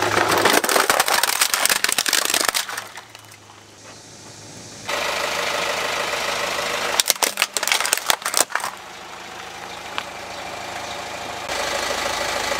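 Car tyre rolling over plastic toy vehicles and crushing them: two spells of crackling and snapping plastic, one at the start and one about seven seconds in, with the car's engine running steadily between them.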